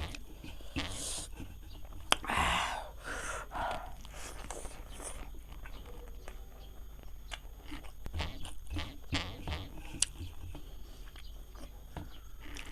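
A person eating barbecued meat and rice, with irregular chewing and biting noises and a few louder noisy bursts in the first four seconds.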